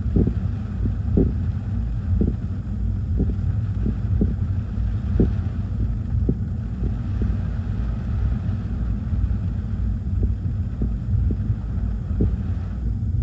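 Strong gusty hurricane-squall wind buffeting the microphone: a heavy, unbroken low rumble with a sharp thump every second or so, over a fainter hiss of wind.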